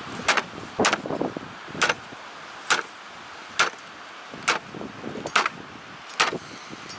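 A heavy blade chopping through a lamb's backbone into a wooden cutting board, dividing the rack into chops: about eight sharp blows, roughly one a second.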